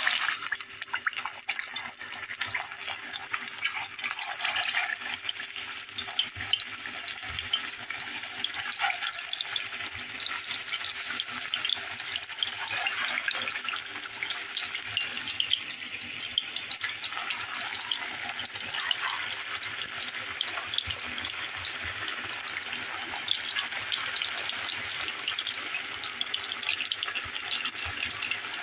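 Chicken köfte patties deep-frying in hot oil in a steel pot: a steady sizzle full of small crackling pops.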